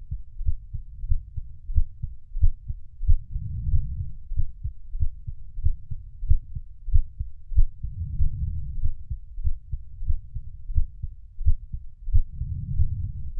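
A human heartbeat, low and muffled, thumping in a steady, even rhythm. A soft low swell rises and fades about every four to five seconds.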